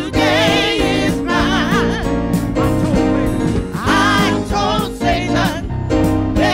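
A woman singing a gospel song into a handheld microphone, her held notes wavering with a wide vibrato, over instrumental accompaniment with sustained chords.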